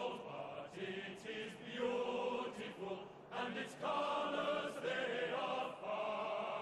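Male choir singing in unison, with sustained notes in short phrases.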